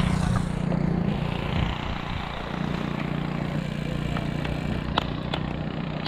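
An engine running steadily at idle, with a low, even hum, and a couple of sharp clicks about five seconds in.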